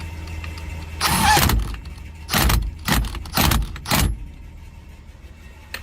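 Hand tool tightening a screw on a steering-wheel short hub: a longer metallic rattle about a second in, then four short strokes about half a second apart.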